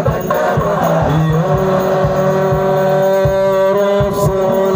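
Shalawat devotional singing: a lead voice holds one long note from about a second and a half in, over a steady beat of drums.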